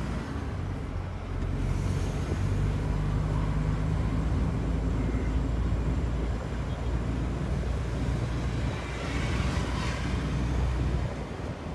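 DAF truck engine running under load while driving, heard inside the cab as a steady low hum. The automated gearbox changes up a gear partway through.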